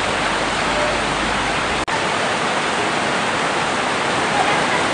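Steady rain falling, an even dense hiss that cuts out for an instant about two seconds in.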